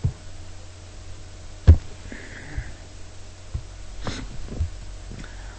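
A few short, soft knocks or clicks over a steady low hum, the loudest nearly two seconds in.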